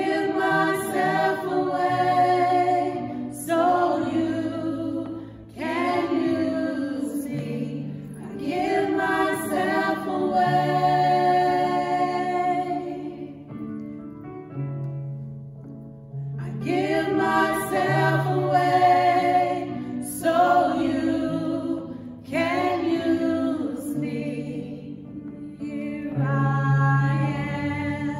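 A women's praise team singing together in phrases of a few seconds, with a break in the voices about halfway through. A low held note runs underneath, changing pitch in steps.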